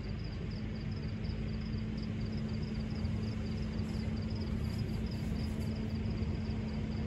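Steady low rumble of road traffic with a constant engine hum. Over it a cricket chirps in a quick, even rhythm, about four chirps a second.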